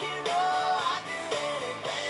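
Country song playing: a singer's melody over a band with a steady beat of about two strokes a second.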